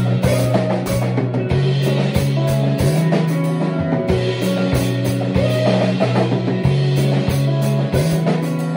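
Rock music played live on a drum kit with crashing cymbals and a guitar, the drums keeping a steady driving beat under sustained low guitar notes.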